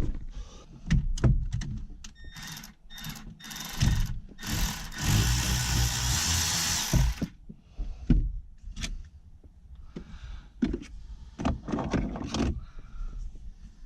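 Clicks, knocks and rattles of hand tools and parts being handled during car repair work, with a dense rasping noise lasting about two seconds, about five seconds in.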